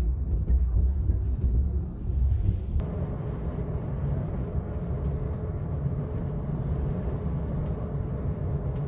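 Low steady rumble of a moving vehicle heard from inside its cabin, cutting abruptly about three seconds in to the steady engine and road noise inside a bus driving along a paved road.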